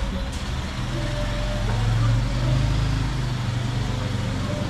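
A motor vehicle engine running steadily at low revs, a low droning hum.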